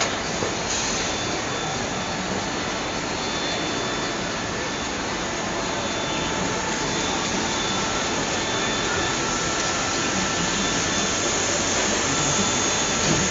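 Steady noise from plastic injection moulding machines running: an even hiss with a few faint steady whining tones, growing slightly louder toward the end.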